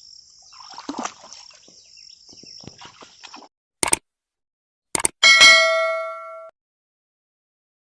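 High, steady insect chirring with a few faint knocks, which stops suddenly. After two sharp clicks comes a single loud metallic ding that rings with several overtones for about a second and cuts off abruptly.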